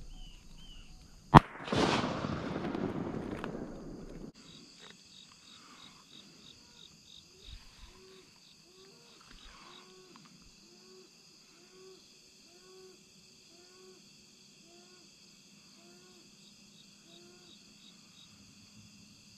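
A single close shotgun shot about a second in, followed by a few seconds of rushing noise. After that a quiet, steady insect chorus, with a low call repeated about a dozen times at an even pace.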